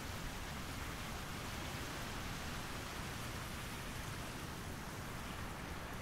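Steady, even outdoor background hiss with a low rumble underneath, unchanging throughout; no call from the perched hoopoe is heard.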